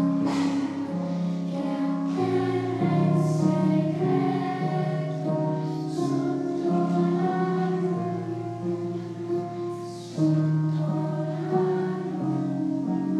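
Children's choir singing a song in Italian, in long held notes that change every two seconds or so.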